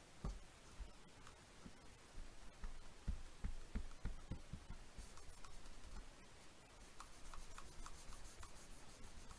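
Paper towel rubbing over freshly glued paper on the side of a box to smooth it down, in a few short hissing strokes. Soft knocks of the box being handled and set against the cutting mat run through the first half.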